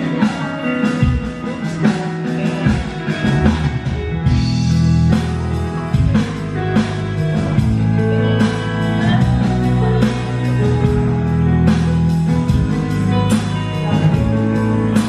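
A live band playing a song, with electric guitar and keyboard over a beat; the bass gets much heavier about four seconds in.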